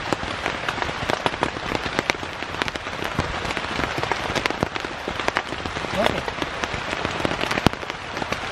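Heavy rain falling steadily on a tent, with many sharp drop hits.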